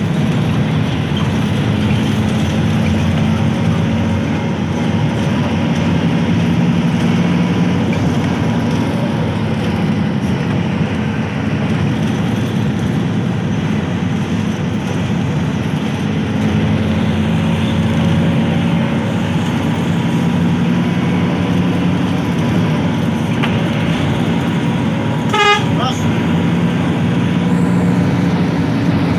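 Bus engine and road noise running steadily while under way, with one short horn toot about 25 seconds in.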